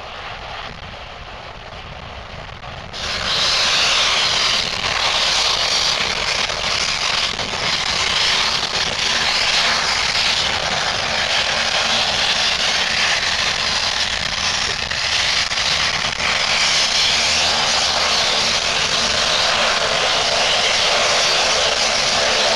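BAe Jetstream Super 31's twin Garrett TPE331 turboprop engines running as the aircraft taxis after landing: a steady, loud, high-pitched engine noise that jumps louder about three seconds in, with a lower propeller drone coming in near the end.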